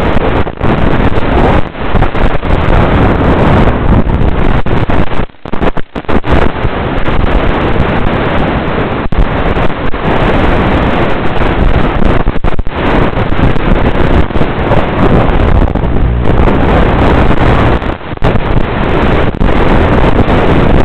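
Loud, distorted rush of wind and motor-propeller noise on the onboard FPV camera's microphone of a Hardcore 31 flying wing in fast, low flight. It drops out briefly a few times.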